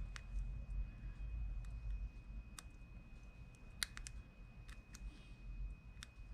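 Sharp metallic clicks, about seven, spaced irregularly: small tools and parts knocking together as a seized, corroded fishing reel is taken apart by hand.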